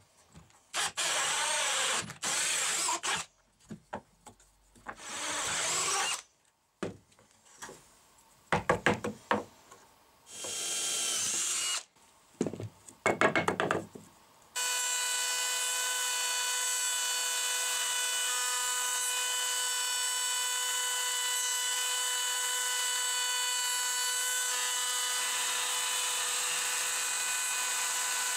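A drill with a hole saw cutting into wood in short bursts, spinning up and slowing down between cuts. About halfway through, a trim router starts running with a steady high whine.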